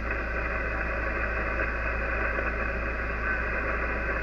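Steady hiss and static from the speaker of an Icom IC-756PRO HF transceiver in lower sideband as it is tuned down the 40 m band. No clear voice comes through, and a low hum runs underneath.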